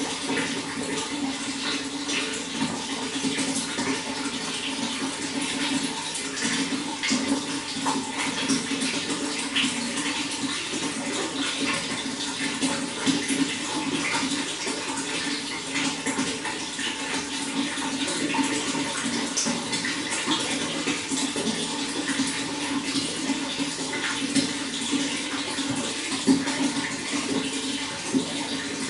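Running water flowing and splashing steadily, a continuous rushing with many small splashes.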